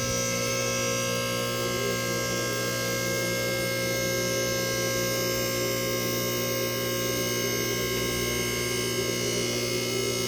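Car lift's electric hydraulic pump motor running, a steady loud hum, as the lift goes up. No safety-lock clicks are heard over it, which is a bad sign.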